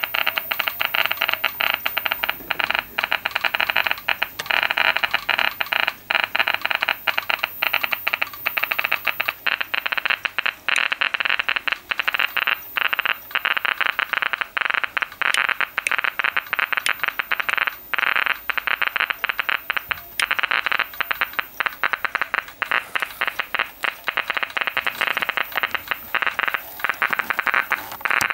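Geiger counter clicking rapidly and irregularly into a near-continuous crackle. It is picking up radiation from the radium luminous paint on old clock dials.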